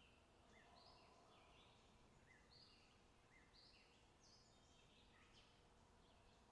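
Faint birdsong: birds chirping in many short, quick notes, overlapping one another over a low background hiss.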